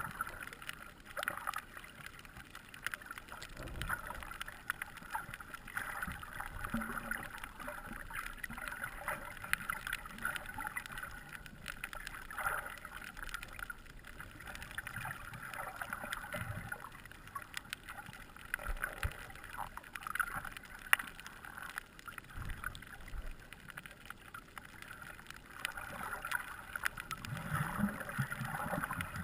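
Underwater sound: a steady muffled hum with many small clicks and ticks throughout, and a few low thuds.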